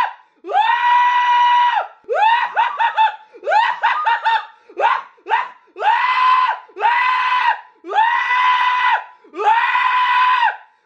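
A high-pitched, put-on laugh for puppet Yoda. It starts as quick choppy cackles, then turns into long held high notes of about a second each, with short breaths between them.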